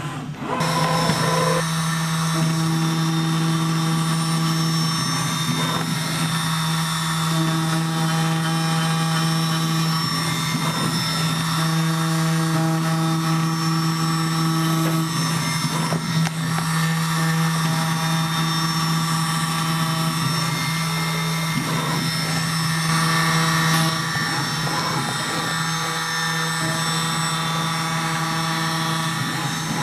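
CNC milling machine cutting bone nut blanks under coolant spray: a steady spindle hum, with a higher tone that comes and goes every few seconds as the cutter moves through the work.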